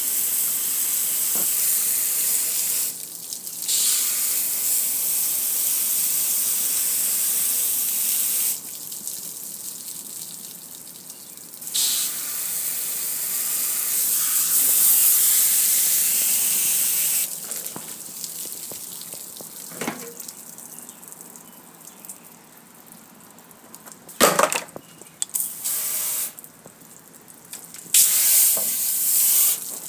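Water from a garden hose spray nozzle hissing as it sprays onto a metal gas grill. The spray runs in long spells with short pauses through the first half, is quieter for a while, then comes in several short blasts near the end.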